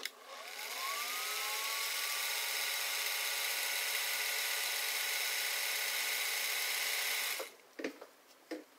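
Singer 401 sewing machine running under its electric motor, with a whine that rises in pitch as it speeds up over the first second, then holds steady. The machine has just had its top and needle-bar mechanism oiled. It stops about seven and a half seconds in, followed by a few short knocks.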